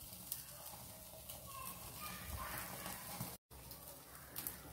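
Faint hiss of a gas stove burner with chicken pieces sizzling lightly on a wire grill net over the open flame, with a few faint clicks and short chirps. The sound drops out for an instant about three and a half seconds in.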